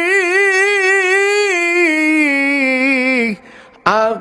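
A man's voice chanting a Quranic verse in drawn-out melodic recitation, holding one long wavering note that glides down and stops about three seconds in. After a short breath, a new phrase starts near the end.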